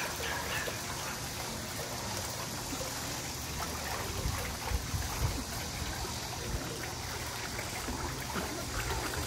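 Pool water trickling and lapping steadily, with small splashes from a small terrier paddling as it swims. A few soft low thumps come around the middle.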